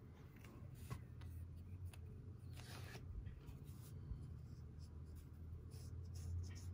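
Ink brush pen stroking across IKEA MÅLA drawing paper, a few short, soft scratchy swishes, over a faint, steady low hum.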